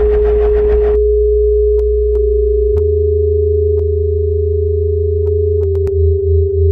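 Experimental electronic music: a steady sine tone held over low bass drones. There is a burst of noise in the first second, scattered clicks, and a bass note change about three seconds in. Near the end the bass starts to pulse.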